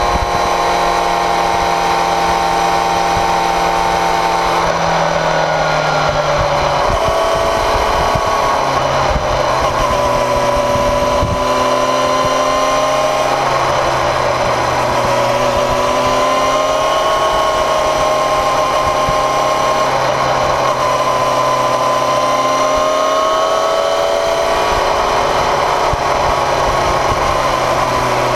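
Motorcycle engine running at road speed, heard up close beside the rear wheel, with a steady whine whose pitch shifts a few times as the revs change.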